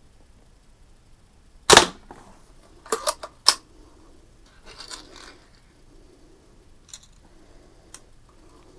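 A single shot from a Daisy 499B spring-powered BB gun, a sharp pop about two seconds in, followed about a second later by a quick cluster of clicks and clacks, then faint small ticks.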